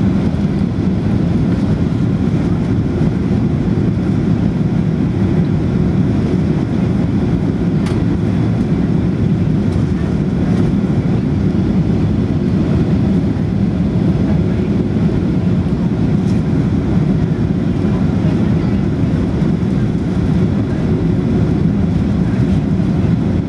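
Steady cabin noise inside a Ryanair Boeing 737-800 on approach: the even, low rumble of its two CFM56-7 turbofan engines mixed with airflow over the fuselage.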